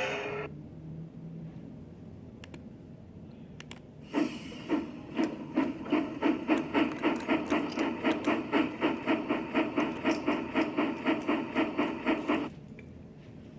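A rapid, regular series of rubbing strokes, about four a second, that starts about four seconds in and stops sharply near the end. A music clip fades out at the very start.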